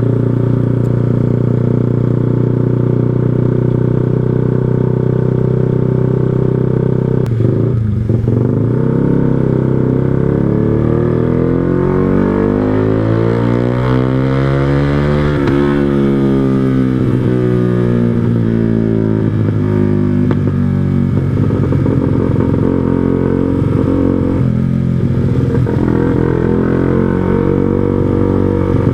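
Yamaha R15 V2's single-cylinder four-stroke engine running through an aftermarket Proliner TR1R Short silencer and 3Tech Racing Evolution header while the bike is ridden. The engine note is steady at first and breaks briefly about seven seconds in. After that its pitch rises and falls.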